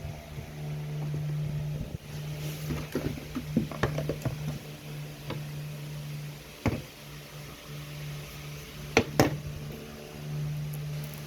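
Irregular small plastic clicks and taps of keycaps being handled and pressed onto a mechanical keyboard, with a sharper pair of clicks near the end, over a steady low hum.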